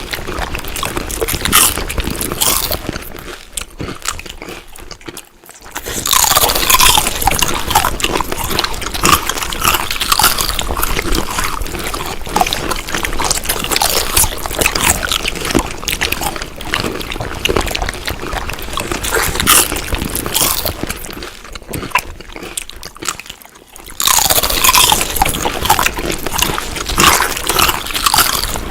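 Wet, crunchy chewing of food, dense and irregular, with two short lulls before it starts up loudly again.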